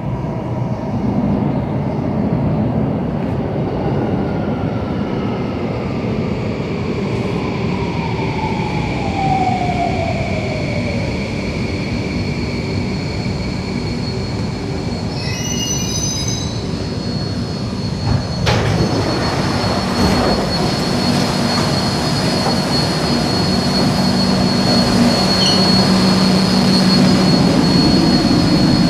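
Singapore MRT train pulling into an underground platform behind screen doors, its motor whine falling in pitch as it brakes to a stop. About fifteen seconds in comes a short run of chime tones, then the doors slide open, leaving a steady high tone and a low hum of the train standing at the platform.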